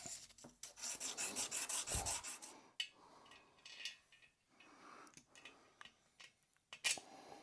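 Quick, even rasping strokes of abrasive rubbed on the head of a small steel bolt, smoothing out score marks, for about a second and a half. Then a few small metallic clicks and one sharp click near the end.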